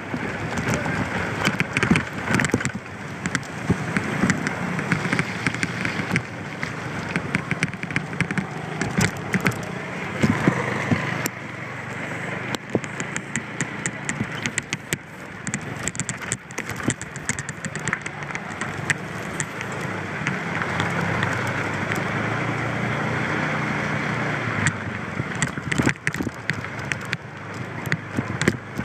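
Riding on a moped: a steady rush of wind over the microphone with the scooter's small engine running underneath, and many crackling clicks throughout.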